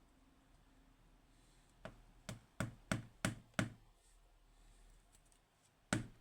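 Small metal lock parts and tools being handled on a dimple-lock core: six short, sharp clicks about three a second starting about two seconds in, then one more click near the end.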